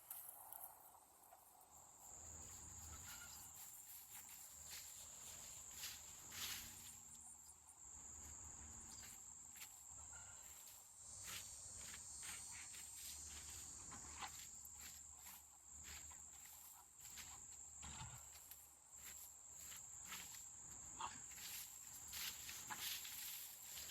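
Faint outdoor insect chorus: a steady, high-pitched trill, with scattered small clicks and rustles.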